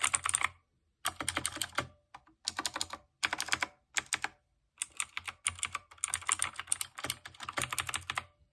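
Typing on an Anko 60% mini mechanical keyboard with clicky blue-type switches. It gives a rapid clatter of sharp clicks in several runs with short pauses between them. Very clicky.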